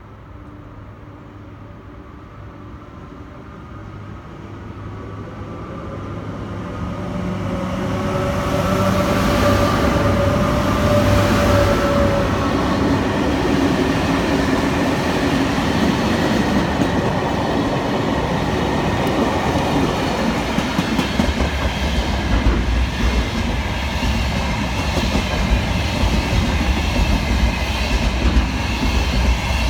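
Freight train approaching and passing close by. The sound grows louder over the first ten seconds or so as the locomotive comes near and goes past, its whine sliding slightly down in pitch. Then a long line of freight wagons rolls past with steady rumbling and clattering of wheels on the rails.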